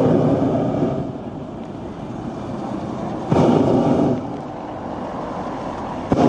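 Hot-air balloon propane burner firing in blasts: one ends about a second in, another lasts about a second near the middle, and a third starts at the very end, with a steadier, quieter rush in between.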